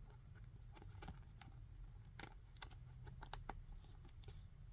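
Faint, irregular light clicks and taps of trading cards being handled and flipped through.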